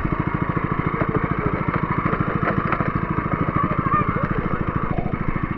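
A small engine running steadily with an even, rapid chugging.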